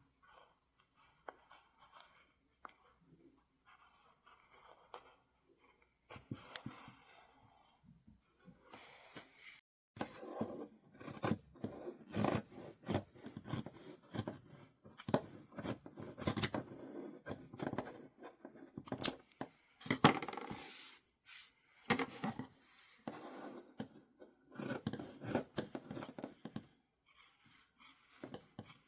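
Scissors cutting cloth, crisp snips mixed with the rustle of fabric being handled; faint and sparse at first, busier from about ten seconds in.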